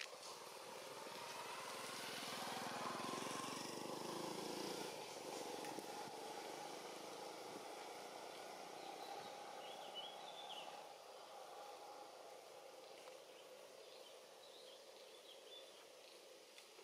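Faint outdoor ambience: a low rushing noise that swells and then fades during the first few seconds, with a few faint bird chirps about ten seconds in.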